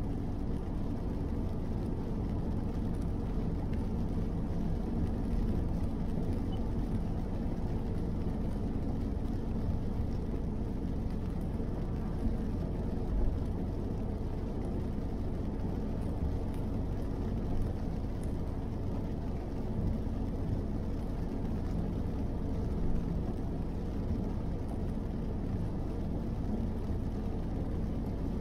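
Steady low road noise inside a car cruising on a wet highway: tyres on wet asphalt and the engine, heard through the cabin.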